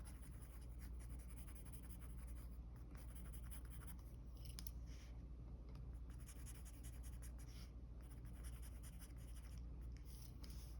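Mechanical pencil lead scratching on paper in runs of short sketching strokes with brief pauses, faint, over a steady low hum.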